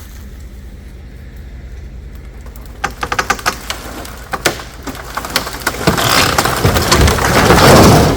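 Old barn timbers cracking and snapping, then a section of the wooden barn collapsing with a loud crash of breaking boards that builds to a peak near the end. A steady low engine hum runs underneath.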